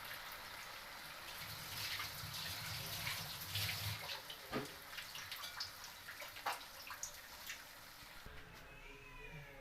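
Kitchen tap water running and splashing in a sink, with scattered clinks and knocks of things being handled in it. The water dies down near the end.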